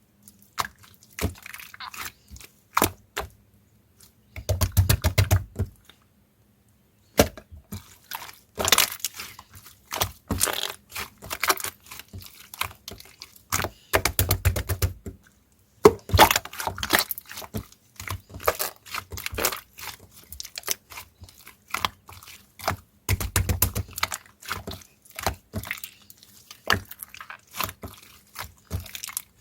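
Slime being squeezed, poked and stretched by hand, making many sharp clicks and pops in quick runs with short pauses.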